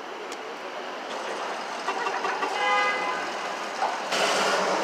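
City street traffic noise, with a vehicle horn sounding for about a second near the middle. Near the end it cuts abruptly to a louder, hissy din.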